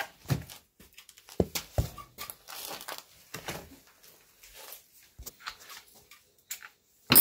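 Scattered handling knocks and clicks with some rustling of cloth, then one loud, sharp knock near the end.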